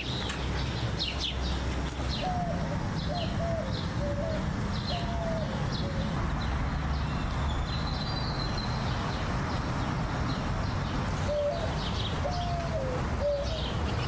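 Birds chirping and twittering, with a dove cooing a phrase of about five short falling notes twice, a couple of seconds in and again near the end, over a steady low rumble.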